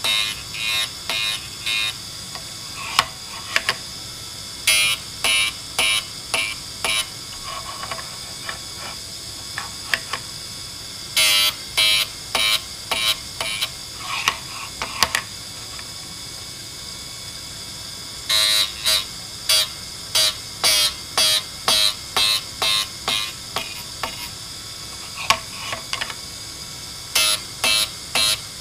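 TDR 82B drill grinder running with a steady high whine while a drill bit in its holder is stroked across the wheel, giving short bursts of grinding rasp in runs of several strokes, about two a second, with pauses between runs. The strokes are point-splitting (web-thinning) passes taking only light cuts.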